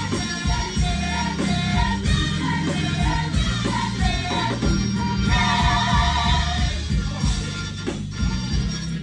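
Live gospel music: a band with a steady bass line under singers in short repeated phrases, swelling to a fuller held sung chord past the middle and thinning out near the end.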